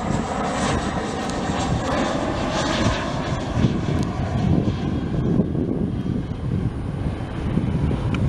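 Boeing 737-400 freighter's CFM56 jet engines as the plane passes low on final approach: a steady jet roar whose upper hiss fades after about five seconds as it moves away, leaving a low rumble.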